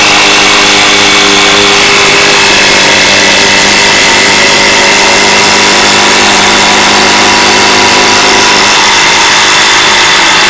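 Ryobi P1870 18V impact driver running flat out, its impact mechanism hammering steadily and loudly as it drives an 8-inch timber screw deep into a wooden beam under heavy load.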